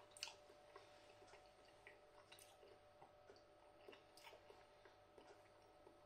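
Quiet chewing of a soft mouthful of broccoli and carrot: scattered small wet mouth clicks, a slightly sharper one just after the start, over a faint steady hum.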